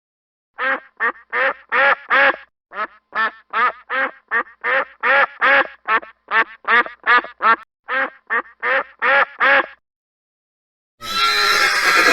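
Domestic duck quacking: a long run of about two dozen short quacks, roughly three a second, with a brief pause after the first half-dozen. Near the end, after a second of silence, a horse begins to whinny.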